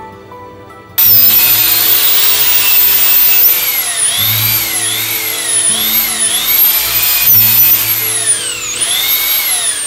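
Hand-held cordless power tool with a spinning abrasive disc grinding the edge of a chunk of broken glass. It starts abruptly about a second in and runs loud and gritty, its high motor whine dipping and recovering again and again.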